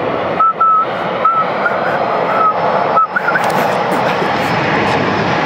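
Turkish Airlines Boeing 737-800's CFM56-7B jet engines at takeoff thrust, a steady rush of jet noise as the airliner accelerates down the runway. Over the first three seconds, several short high chirps sound over the engine noise.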